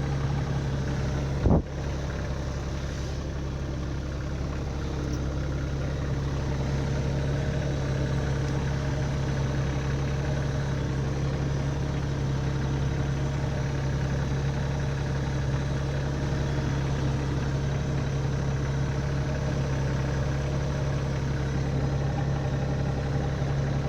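Kioti subcompact tractor's diesel engine idling steadily, with one sharp metallic knock about a second and a half in.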